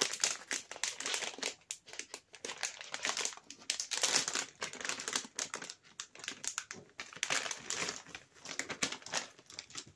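Crinkly plastic packaging of a pack of fineliner pens being handled, an irregular run of rustles and crackles.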